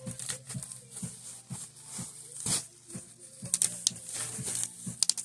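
Scattered clicks, taps and rustling from packaging and objects being handled by hand, about two or three small knocks a second.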